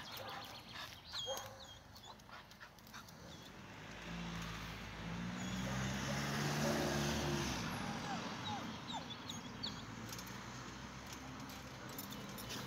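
A dog whimpering now and then, with a car passing on the street, loudest a little past the middle.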